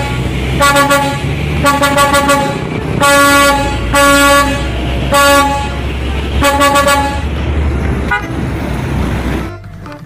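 Semi-truck's air horn sounding about six times on one pitch, some blasts held and some in quick runs of toots, over the low rumble of the truck's engine as it drives past.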